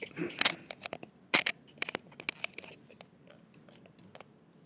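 Rustling and crackling handling noise: irregular sharp clicks and crinkles, dense for about three seconds, then thinning to a few faint ticks.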